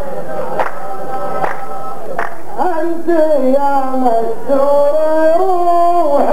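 A row of men singing together over slow, even hand-claps, a little more than one clap a second, in the style of Saudi qalta poetry chanting. About two and a half seconds in the claps stop and a single man's voice chants a long, wavering melodic line.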